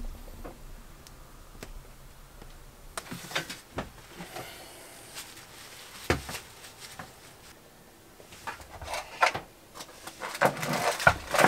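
Scattered knocks, clicks and rustling of things being handled, with one louder knock about six seconds in and a busier patch of clatter near the end.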